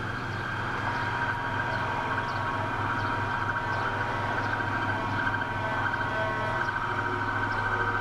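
Steady rumble of road traffic with a faint steady high tone starting about a second in: the single-tone activation signal for an H.O.R. Siro-Drone warning siren, which is not yet sounding at full strength. The sound grows slowly louder.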